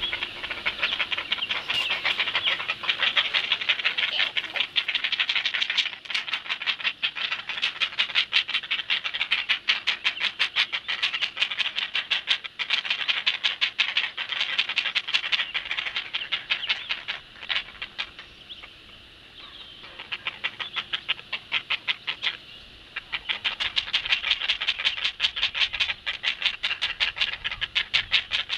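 Great blue heron nestlings begging for food while being fed, giving a fast, rhythmic run of clacking calls. The calls ease off for a few seconds past the middle, then pick up again.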